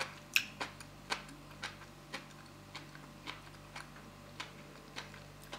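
A person chewing a mouthful of noodles with her mouth closed: faint clicks of the chewing, about two a second.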